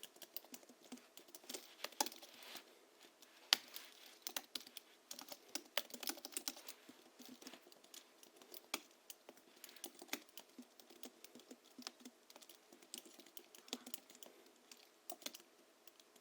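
Steady, irregular typing on a Hansung GHL-5X keyboard with lubricated springs, 50 g rubber domes and a sound-absorbing sponge in the case, giving muted, thocky keystrokes with a few harder strokes now and then.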